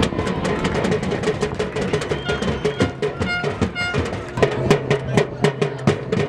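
Background music with a steady drum-kit beat; a low bass note comes in about four seconds in.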